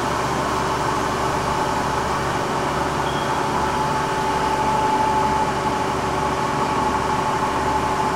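Chevalier CG-1440A universal cylindrical grinder running its automatic reciprocating grinding cycle, the table traversing back and forth: a steady machine hum with a thin whine that grows stronger about halfway through. Very quiet, very smooth.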